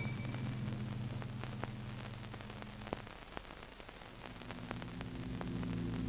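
A low steady hum of a few deep tones fades out about halfway through, over a faint crackle of scattered clicks typical of an old film soundtrack. A new low hum of several tones rises in over the last second or two.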